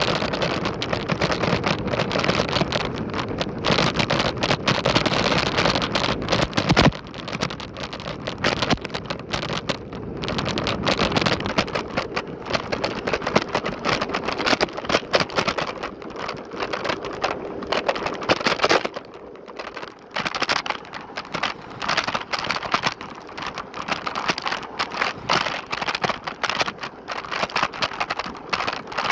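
Lime electric scooter ride noise: a steady rushing noise with constant rattling and knocking from the scooter over the road surface, easing off for a few seconds about two-thirds of the way through.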